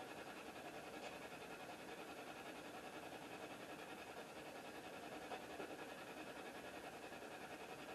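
Faint steady hiss: quiet room tone.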